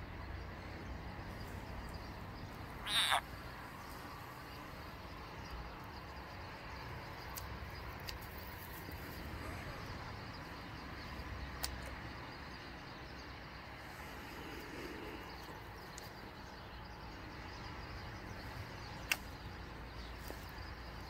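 A frog giving one short, high squeal that falls steeply in pitch, about three seconds in, over a faint steady outdoor background, with a couple of light ticks later.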